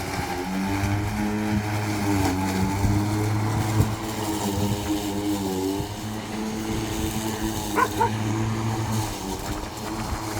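Ozito 36V (2×18V) brushless battery lawn mower running while cutting grass: a steady motor and blade hum whose pitch wavers slightly as it works through the grass. A short sharp sound rises above it about eight seconds in.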